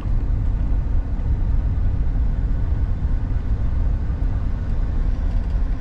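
Car on the move: a steady low rumble of engine and road noise.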